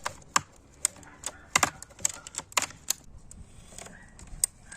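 Hoteche ratchet lopper clicking as it is worked: a string of sharp, uneven clicks, about two a second, with a short gap a little after the middle.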